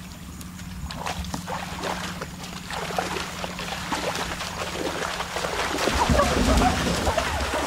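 Splashing and sloshing of people and a cow wading fast through shallow water, getting louder over the last couple of seconds.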